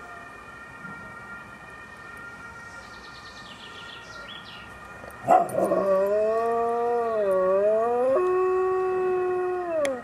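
A dog howls along with a faint police siren. The siren's steady tones sound throughout. About five seconds in, the dog starts one long, loud, wavering howl, which shifts pitch about eight seconds in and falls away at the end.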